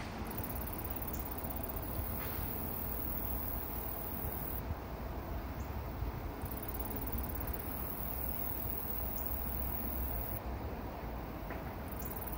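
Steady outdoor background noise: an even hiss over a fluctuating low rumble, with a few faint ticks.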